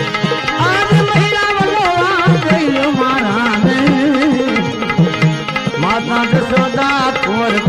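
Instrumental passage of a Gujarati bhajan: a hand drum keeps a steady rhythm under a melody instrument playing wavering, gliding lines.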